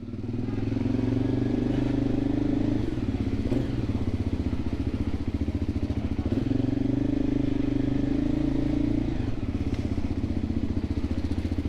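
Voge 300 Rally motorcycle's single-cylinder engine running as the bike moves off. The level climbs over the first second and the engine note changes about three and a half and nine seconds in.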